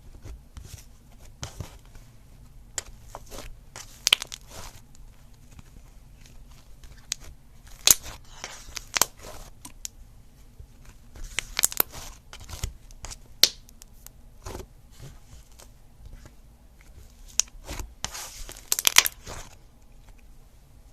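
Slime being squeezed and stretched by hand, giving irregular sticky pops, crackles and tearing sounds, with a quick cluster of pops near the end.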